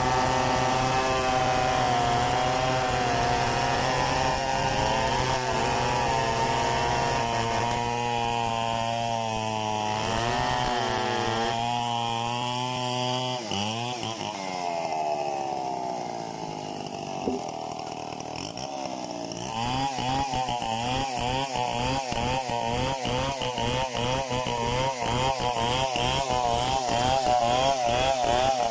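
Two-stroke Stihl 070 chainsaw running hard, its pitch steady at first, then wavering and dropping to a lower speed about halfway through. It comes back up a few seconds later with the pitch rapidly rising and falling and growing louder.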